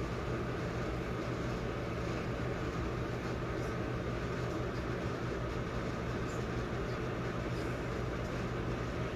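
Steady machine hum with a hiss over it, even and unchanging, with a few faint ticks.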